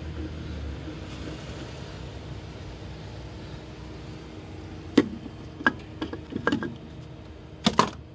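A low steady hum, then a handful of sharp knocks and clicks from about five seconds in, with a loud close pair near the end.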